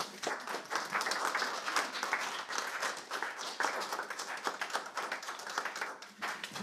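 Audience applauding: many hands clapping at once in a dense, even spatter.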